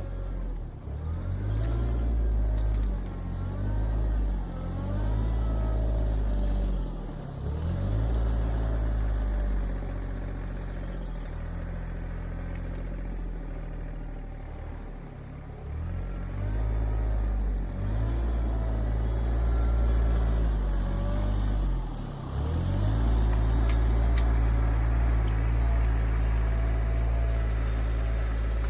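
RK24 compact tractor's diesel engine running steadily under load, its engine speed dipping and recovering several times as it works.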